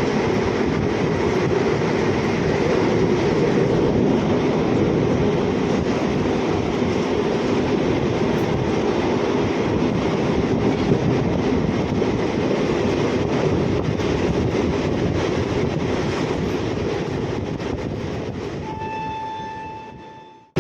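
Train running with a steady rumble of wheels and carriages. Near the end a single steady horn note sounds for about a second and a half, then the sound fades away.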